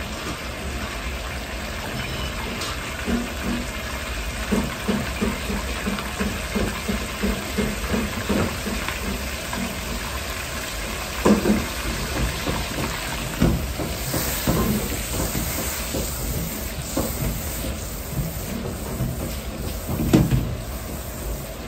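Butter sizzling and foaming in a carbon-steel wok over a steady rumbling gas burner, with a hiss that swells in the middle. Short knocks come as the wok is swirled on its burner ring, the loudest about eleven, thirteen and twenty seconds in.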